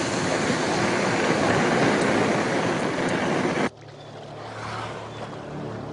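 Loud, steady rushing of wind and sea on an open boat in rough Arctic weather, which cuts off abruptly about three and a half seconds in. A much quieter low steady hum follows, with a few faint short high chirps.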